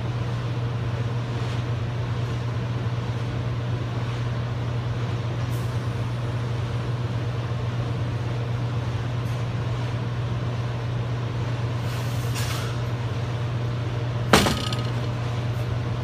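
A steady low hum of unseen workshop machinery, with a few faint knocks and one sharp metallic clink near the end as the bolted stack of steel toothed discs is handled and set down.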